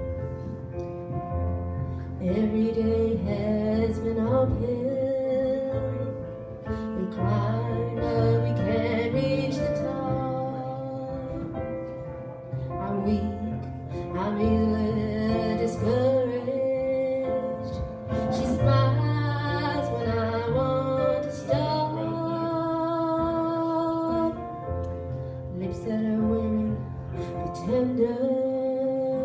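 A woman singing a country ballad live into a microphone, over keyboard accompaniment of held chords and a changing bass line.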